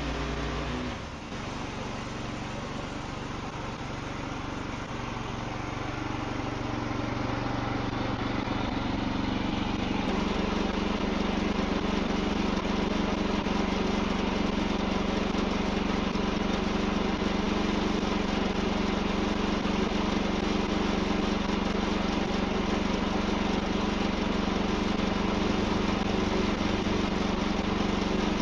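Wood-Mizer LX55 band sawmill's small engine running steadily. About ten seconds in it grows louder and settles into a strong steady low hum.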